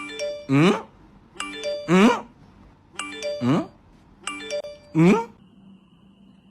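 A short electronic chime tune played four times, about a second and a half apart, each ending in a sliding whoop that rises and falls.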